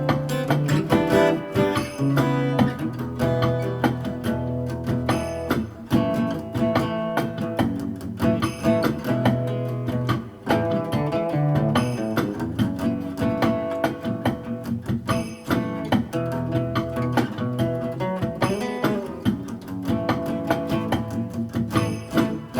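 Guitar music, strummed and plucked, playing continuously.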